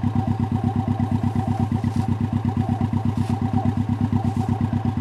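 Vehicle engine idling steadily, with an even, rapid pulse.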